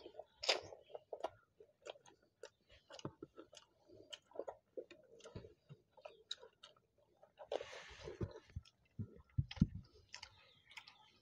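Close-miked mouth sounds of people eating soft fried flatbread and potato curry by hand: a steady run of wet chewing clicks and lip smacks. About two thirds of the way in there is a short hissing rush, followed by a few low thumps.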